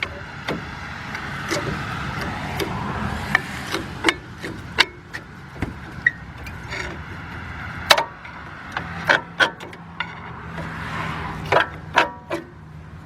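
Brake pads and steel caliper-bracket hardware being handled: scattered sharp metal clicks and clinks, about a dozen, some ringing briefly. The pads are binding in the bracket.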